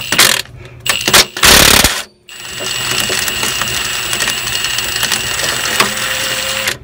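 A power tool working a stubborn steel nut loose. It gives a short loud burst, stops briefly, then runs steadily for about four and a half seconds before cutting off sharply.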